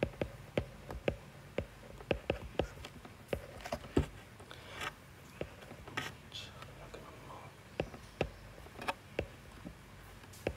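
A stylus tapping and writing on a tablet screen as digits of a sum are written out: a string of irregular sharp taps, about two a second.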